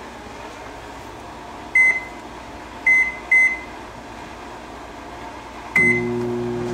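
Westinghouse stainless steel microwave oven: three short keypad beeps, then a fourth beep near the end as it starts, and the oven begins running with a steady low hum.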